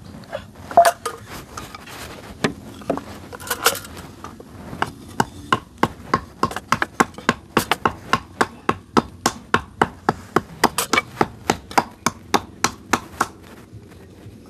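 A hand tool striking wood: a few separate knocks, then from about five seconds in a fast run of hard blows, about four or five a second, that stops shortly before the end.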